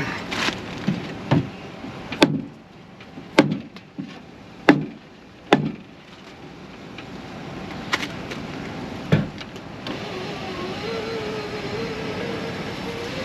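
Sharp knocks, about seven over the first nine seconds, as the door glass is pressed and tapped into its clips on the new window regulator. From about ten seconds in, a steady motor whine follows: the power window motor running.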